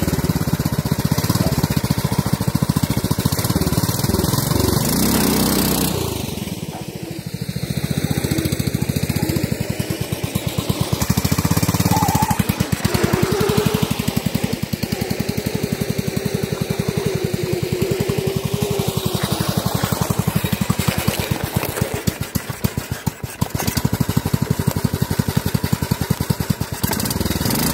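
Lifted Craftsman riding mower's small engine running with a fast, even pulsing exhaust. It swells and fades as the mower drives off and comes back past, dipping briefly about seven seconds in and again about twenty-two seconds in.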